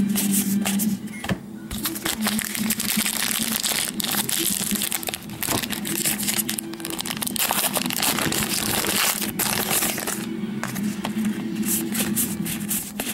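Plastic trading-card pack wrapper crinkling and crumpling as it is torn open and handled, with lots of small rustles and crackles.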